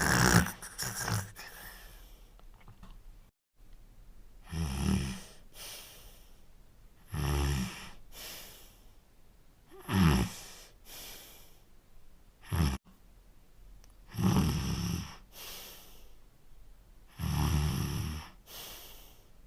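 Cartoon snoring sound effect for the dog Potsworth, sped up: each cycle is a loud rattling snore on the in-breath followed by a lighter, airy out-breath, repeating about every three seconds. The sequence starts with a louder cluster of snorts and has a sudden cut about three and a half seconds in.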